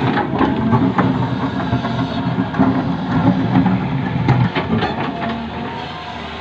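Hydraulic excavator at work: its diesel engine runs steadily under load, with repeated short knocks and clanks throughout.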